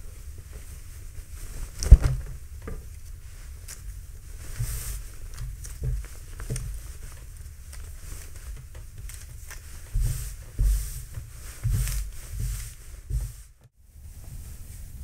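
Fabric rustling and swishing as a striped kitchen towel is handled, folded and smoothed flat on a countertop. There is a sharp knock about two seconds in and a run of soft thumps near the end.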